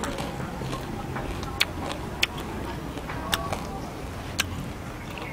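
Fried crickets being chewed, crunching with sharp single cracks about once a second.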